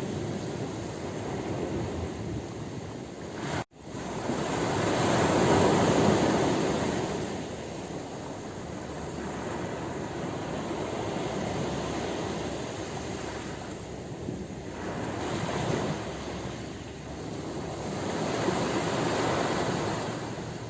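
Ocean waves surging and washing on a shore, a steady rush that swells strongly about four to seven seconds in and again near the end. The sound cuts out for an instant a little under four seconds in.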